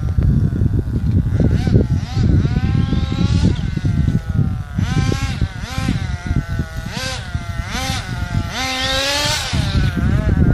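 CEN Fun Factor ST radio-controlled truck's small engine revving, its pitch rising and falling again and again with the throttle as it is driven.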